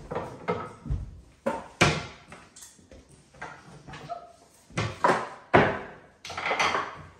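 An irregular string of knocks and clunks from the doors of a wooden toy kitchen's cupboards opening and shutting and play-food toys being put away.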